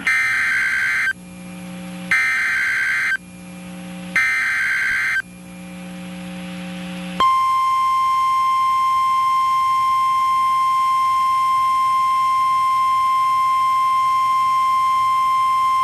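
NOAA Weather Radio Emergency Alert System header: three one-second bursts of raspy SAME data tones, about a second apart, with radio hiss swelling in the gaps. From about seven seconds in comes the steady single-pitch 1050 Hz warning alarm tone, held for about nine seconds, which signals a severe thunderstorm warning.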